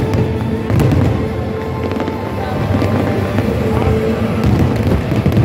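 Fireworks going off in a run of booms and crackling pops, with music playing.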